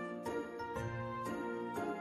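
Light background music with bell-like notes on a steady beat, about two notes a second.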